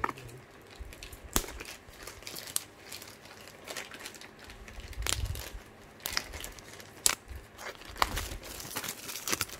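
Clear plastic wrapping being peeled and picked off a small cardboard box by hand: irregular crinkling and crackling with several sharp snaps of plastic.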